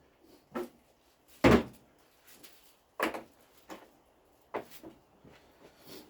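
Irregular knocks and clunks from tools and metal parts being handled, the loudest about one and a half seconds in, with others around three and four and a half seconds.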